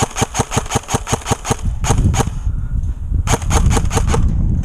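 Airsoft gun firing full-auto: a rapid string of sharp clacks at about eight shots a second that stops near 1.7 s, a short burst of a few shots around 2 s, and another burst of about eight shots near the end. A low rumble on the microphone sits under the later part.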